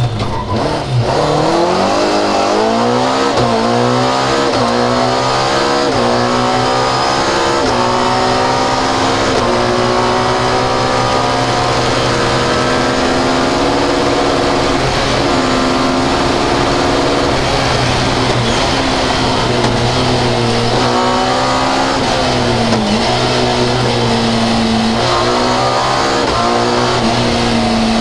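Fiat 131 rally car's engine heard from inside the cabin. It slows hard for a corner at the start, then revs up through the gears with a quick drop in pitch at each upshift. After that it runs at high revs at speed, with one brief lift and dip in pitch a little over three quarters of the way through.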